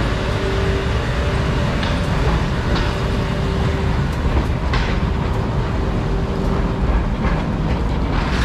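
Small British-built park tourist train running, heard from aboard: a steady rumble of wheels and running gear on the track, with a steady tone held until near the end and a few sharp clicks.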